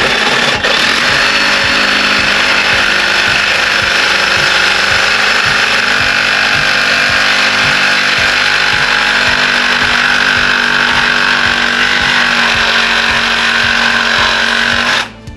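Reciprocating saw (Sawzall) cutting through a steel body mount, running steadily with a hum under a harsh rasp, then cutting off near the end.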